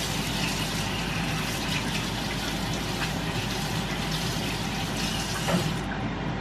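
Kitchen faucet running into a sink as hands are rinsed under the stream, a steady hiss of water. The water shuts off with a small knock about a second before the end.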